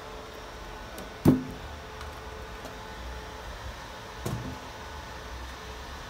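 Two sharp knocks, a louder one about a second in and a softer one about four seconds in, as the panels and top lid of a homemade box cabinet are handled and set in place, over a steady low hum.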